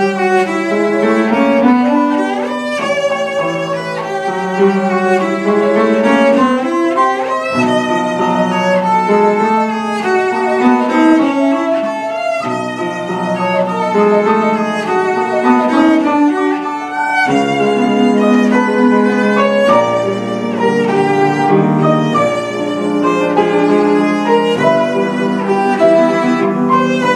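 Cello played with the bow, a melody of held notes, with piano accompaniment.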